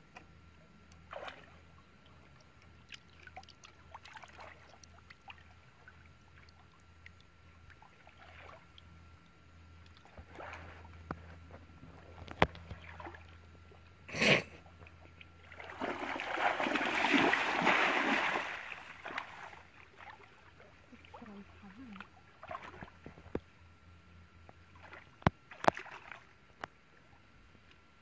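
Shallow muddy water splashing and sloshing around a person wading and fishing by hand with a bamboo plunge-basket trap, in short scattered splashes. About sixteen seconds in comes a longer, louder rush of splashing lasting some three seconds.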